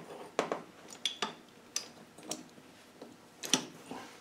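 Sharp metal clicks and clinks from a two-legged steel puller and its wrench worked against a tight gear on a gearbox mainshaft spline, about seven spread irregularly, the loudest a little after three seconds in.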